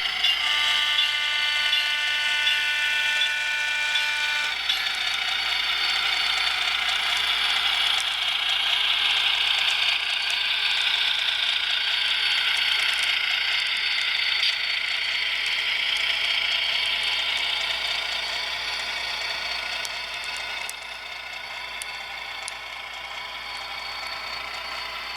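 HO scale model train running along the track: a steady whirring of the locomotive's motor and gears and the wheels on the rails. A steady multi-note tone sounds over it for the first four seconds or so, and the whir grows quieter in the last several seconds as the train pulls away.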